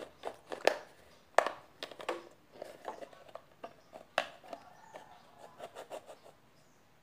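Knife cutting through a plastic shampoo bottle to take its top off: irregular clicks, cracks and scrapes of the plastic as the blade works through it.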